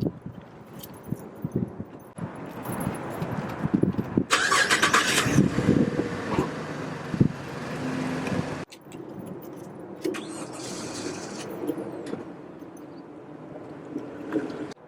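Car sounds in several short cuts, with knocks, clicks and handling noises. About four seconds in there is a loud hiss-like burst lasting about a second.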